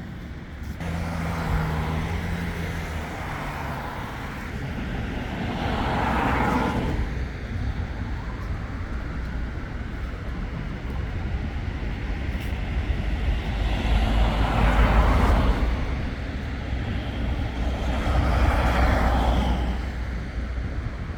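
Road traffic on a city street: a steady rumble of engines, with several vehicles driving past one after another, the loudest about two-thirds of the way through.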